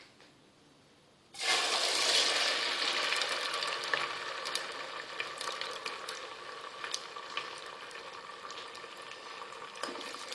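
Water running, starting suddenly about a second and a half in and continuing steadily, with light clicks and knocks mixed in.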